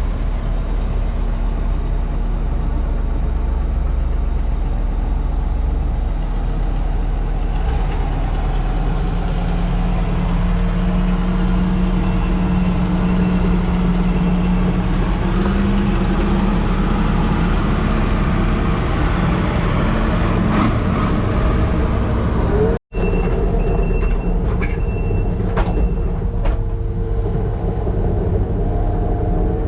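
Skid steer's diesel engine running under load inside its cab, its pitch rising for a few seconds near the middle. Just after a momentary break about 23 seconds in, a few short high beeps sound, with knocks and clanks.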